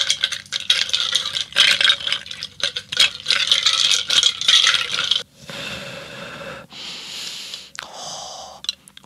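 Muddler grinding and clicking against mint and lime in a drinking glass, in quick rapid strokes for about five seconds. It then stops and gives way to about three slow, breathy breaths close to the microphone.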